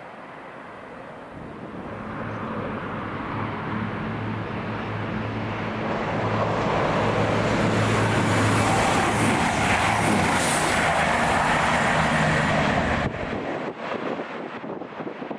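A train approaching and passing at speed: a steady low engine or motor hum under a growing rush of wheel and rail noise, loudest in the second half. The sound cuts off suddenly about two seconds before the end, leaving wind buffeting the microphone.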